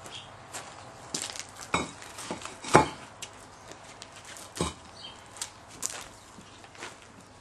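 Pavers knocking and clinking against one another as they are handled and set down on a stack: a series of sharp knocks, the loudest about three seconds in.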